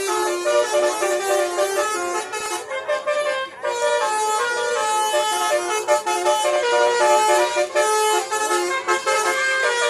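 Basuri multi-tone 'telolet' bus horn playing a melody. Several trumpet tones sound together and step from note to note, with a brief break about three seconds in.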